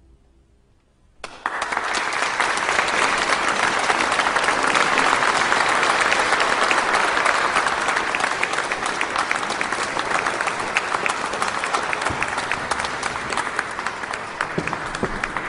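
About a second of near silence after the choir's last chord, then audience applause breaks out abruptly and keeps going steadily, easing off a little near the end.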